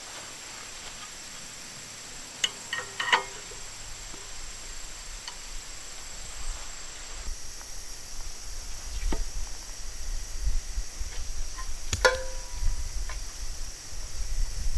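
Steel target hardware: a few metal clinks with short rings as a plate is handled on a Texas Star arm, then about twelve seconds in a single sharp hit that sets a steel plate ringing.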